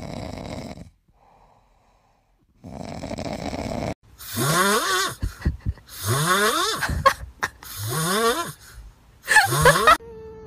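Sleeping pets snoring: two soft, breathy snores, then four loud snores about every second and a half, each rising steeply in pitch into a squeaky, whining note.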